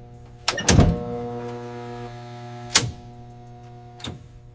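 A steady machinery hum with a heavy mechanical clunk about half a second in, a sharp metallic click near three seconds, and a lighter knock about a second later.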